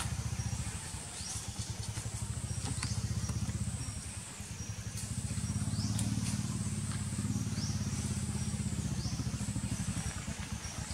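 An engine running steadily at low revs, a low pulsing hum that eases slightly about four seconds in and swells again. A high rising call repeats about every second and a half above it.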